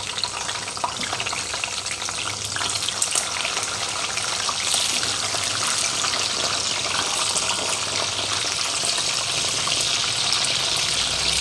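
Green apple pieces sizzling as they shallow-fry in hot oil in a frying pan. The sizzle builds over the first few seconds as the pieces go in, then holds steady.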